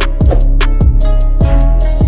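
Background music with a steady drum beat, a low drum hit about every two-thirds of a second under sustained instrument notes.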